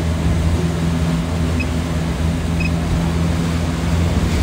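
Steady low drone of a boat's engine running at constant speed, with wind and water hiss over it.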